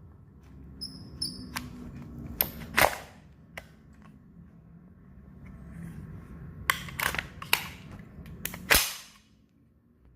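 Aimtop Dragunov SVD gas blowback airsoft rifle firing: sharp cracks of single shots, a few in the first seconds, then a quicker cluster about seven to nine seconds in.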